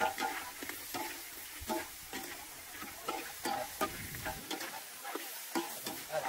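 Metal utensil clinking and scraping against a pan as food is stir-fried, with irregular strikes about two or three times a second over a steady sizzling hiss.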